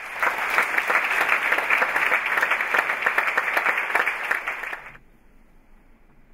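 Audience applauding, a dense patter of many hands clapping, which cuts off suddenly about five seconds in and leaves only quiet hall sound.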